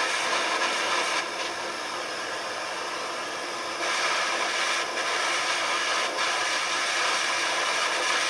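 Propane blowtorch burning with a steady hiss as its flame heats an iron nail. The hiss drops a little in level about a second in and comes back up near four seconds.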